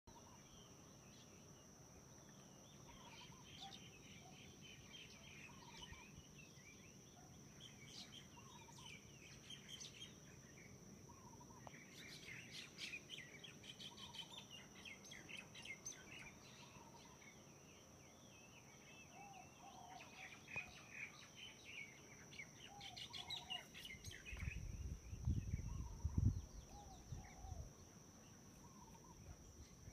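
Faint birds chirping and calling, with one short call repeating every second or two, over a steady high-pitched tone. A low rumble comes in a few seconds before the end and is the loudest sound.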